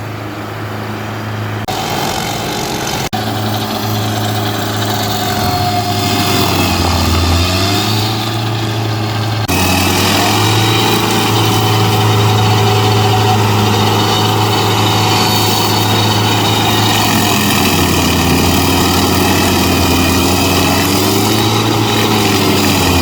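Rayco RG55 stump grinder running hard, its engine pitch sagging and then recovering several times as the cutter wheel takes load, with a few sudden shifts in the sound.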